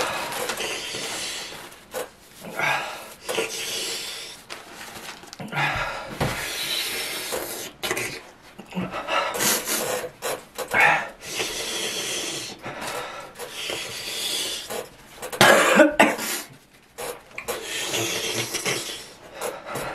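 A man coughing and breathing hard through his mouth from the burn of the One Chip Challenge chip, in irregular bursts with a louder fit about three-quarters of the way in. Paper tissues rustle as he pulls them out and wipes his face.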